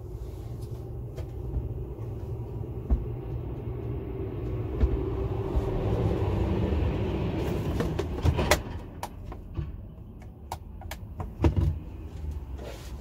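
A steady low rumble, with a hiss that swells and fades in the middle. In the last few seconds comes a run of sharp clicks and knocks as objects are handled in the camper van.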